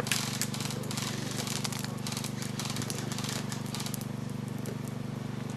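Airsoft guns firing: a quick, irregular run of sharp clicks and snaps, thinning out after about four seconds, over a steady low hum.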